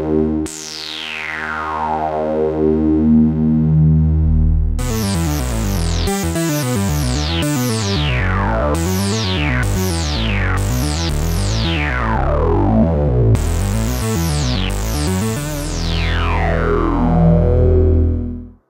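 Oberheim Two Voice Pro analog synthesizer played through its bandpass filter, each note with a bright filter peak sweeping down in pitch. A held low note comes first; from about five seconds in, a quick run of notes follows with repeated downward sweeps, then a few longer notes before the sound cuts off at the very end.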